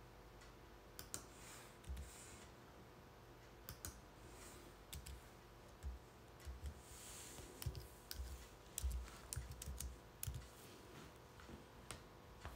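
Faint footsteps and handling noise from a walking, hand-held camera: scattered light clicks and soft low thumps, busiest in the second half, with a few brief rustling swishes.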